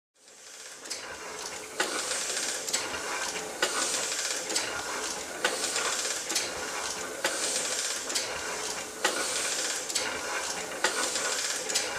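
Letterpress printing press running: a rhythmic mechanical clatter with a hiss, with a sharp clack about once a second. It fades in at the start.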